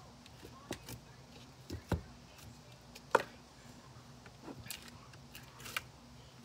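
Slime being tipped from one clear plastic tub into another and pressed down by hand: a few scattered clicks, taps and soft pops from the slime and the plastic, the sharpest about three seconds in.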